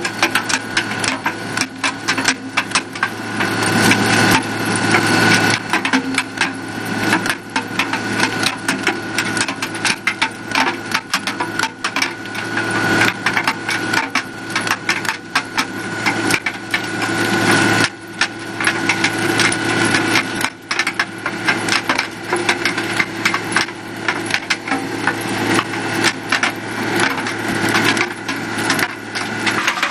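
Samson mine-clearing machine's rotating flails, chains beating the ground in a dense, irregular clatter of strikes, over the steady drone of its diesel engine.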